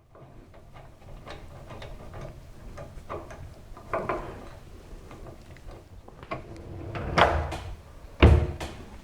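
Handle screws being tightened by hand with a screwdriver from behind a kitchen cupboard door: irregular small clicks and knocks of the tool and hardware against the door, with louder knocks near the end.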